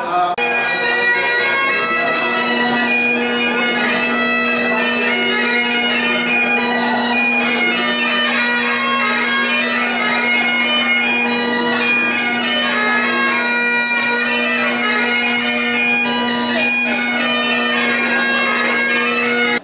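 Great Highland bagpipes played solo: a steady low drone under a chanter melody, starting abruptly just after the beginning and cutting off suddenly at the end.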